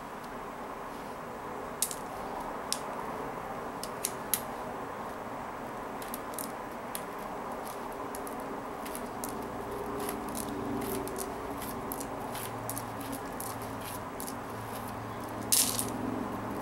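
Scissors snipping thread and plastic kandi beads clicking as a peyote-stitched bead panel is cut apart and picked loose by hand: scattered sharp clicks and snips, with the loudest cluster near the end, over a steady low room hum.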